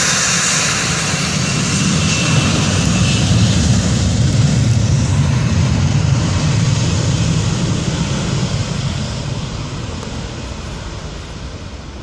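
Twin turbofan engines of an Airbus A320-family airliner at takeoff thrust, heard from outside as the jet passes and climbs away. A high whine fades in the first few seconds while a deep rumble swells about four seconds in, then the whole sound dies away steadily.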